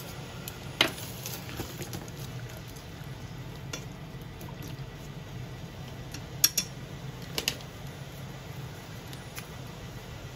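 Wooden chopsticks stirring burdock and konjac in a metal saucepan, knocking sharply against the pot a handful of times, loudest about a second in and in two quick pairs around six and a half and seven and a half seconds in, over a steady low hum.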